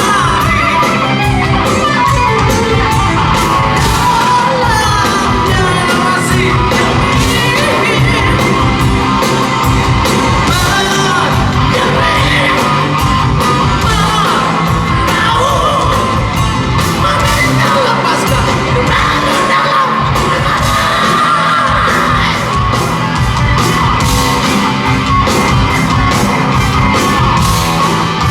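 Live rock band playing loudly in a concert hall, with a singer or the crowd singing along and shouting, recorded raw from the audience.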